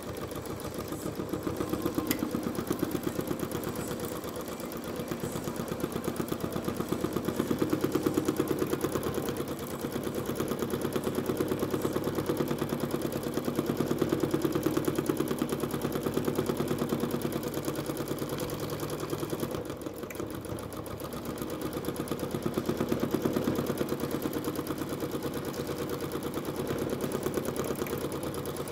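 Janome Skyline S9 sewing machine free-motion stitching: a rapid, even needle clatter over its motor hum, speeding up and slowing in turn as the quilt is moved under the foot.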